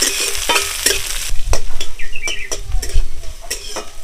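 Chopped onion, with green chilli and garlic, sizzling as it fries in a little hot oil in a kadai, while a spatula stirs it, scraping and knocking against the pan in irregular clicks.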